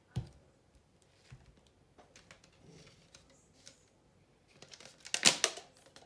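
Light taps and clicks of objects being handled on a worktable, with a louder, brief clatter about five seconds in.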